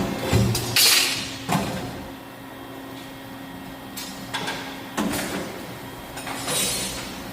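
CNC machine and its automation working: a steady machine hum, broken by sharp metallic clunks and two short bursts of hiss, about a second in and again near the end.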